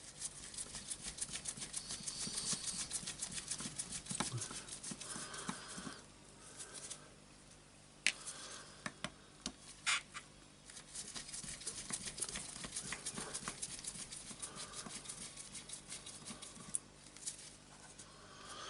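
Two small screws being turned out of an orbital sander's ball-bearing housing by hand: long runs of fast, light clicking and scraping of metal on metal, with a few sharper single clicks near the middle.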